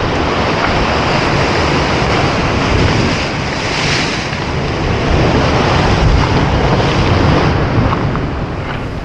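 Sea waves breaking and washing against rock, with wind buffeting the microphone as a low rumble. A wave crash swells up about four seconds in.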